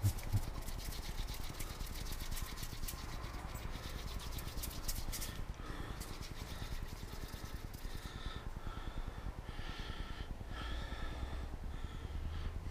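Hands handling a glass bottle and small parts on a cloth-covered worktop: light rustling and clicks over a steady low hum. Faint short high tones come and go in the second half.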